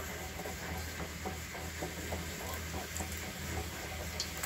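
Cream cheese wontons deep-frying in a small pan of hot oil: a steady sizzle with many small crackles and pops, over a low steady hum.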